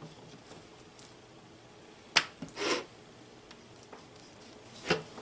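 Knife work trimming a beef roast on a tray: a sharp click about two seconds in, a short scraping rustle just after, and another sharp click near the end.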